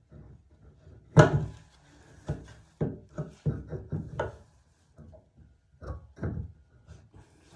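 Clicks and knocks of a Delta single-handle tub/shower faucet handle and its fittings being handled and fitted back onto the valve: one sharp knock about a second in, then a run of lighter, unevenly spaced clicks and taps.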